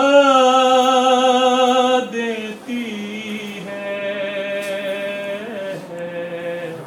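A man singing unaccompanied Urdu devotional verse, drawing out the last word of a line as one long held note, which drops to a lower held note about two seconds in.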